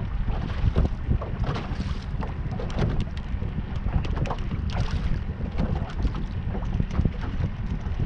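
Wind buffeting the microphone in uneven gusts, with choppy water slapping against the hull of a small boat.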